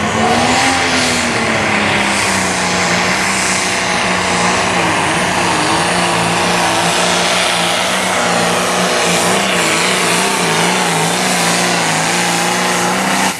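Turbocharged diesel engine of a John Deere 6030 Pro Stock pulling tractor at full throttle, hauling the weight-transfer sled. It revs up in the first second, then runs hard under heavy load with the pitch wavering as the tractor hooks and bounces, and falls away at the end of the run.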